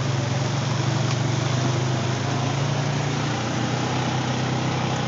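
ATV engine running at a steady speed, heard from on board while riding.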